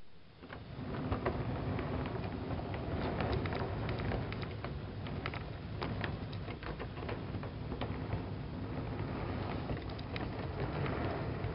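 O gauge three-rail model train passing close by: sheet-metal coaches on metal trucks rolling along the track with a steady rumble and many scattered small clicks. It rises over the first second as the train comes near.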